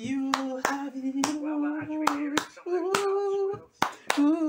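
A singer holds long notes with no clear words, stepping up to a higher pitch about halfway through. Sharp hand claps keep a steady beat under the voice.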